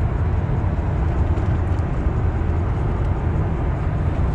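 Steady low rumble of road noise heard inside a car's cabin while it cruises along a highway.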